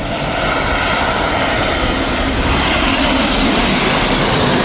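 Jet airliner on final approach passing low overhead, its engines making a loud, steady roar that swells in just as the sound begins and then holds.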